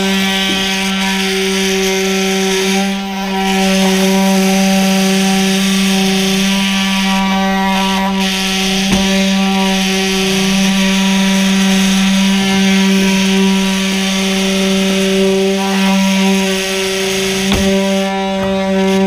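A cordless oscillating cut-out tool runs at a steady high buzz as its blade works along the edge of a shattered truck rear window, cutting the glass out of its frame. A few small clicks and crackles sound as it goes.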